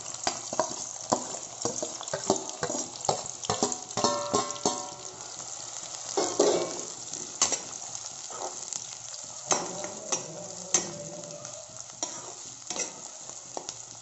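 Chopped onions sizzling in hot oil in a kadai, while a steel spoon stirs them, scraping and knocking against the pan again and again. There is a brief metallic ring about four seconds in.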